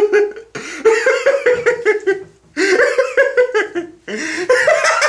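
A person laughing hard in three bouts, each a run of quick, high-pitched pulses with short breaks between them.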